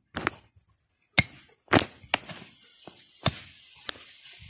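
A small hand digger's metal blade striking and chopping into dry soil and leaf litter about six times, digging out a metal detector target. A steady high-pitched buzz of insects comes in about half a second in.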